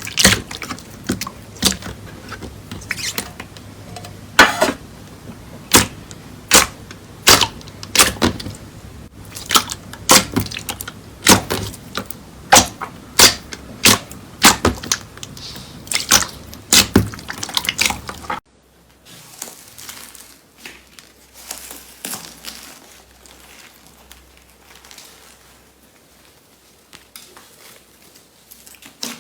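Slime being pressed and worked by hand, with a run of sharp, wet pops and clicks about every half second to a second. About two-thirds of the way through it cuts to quieter, softer handling with faint crackles.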